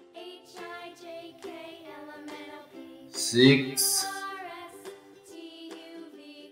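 Background music for children with plucked notes. A voice says "six" about halfway through.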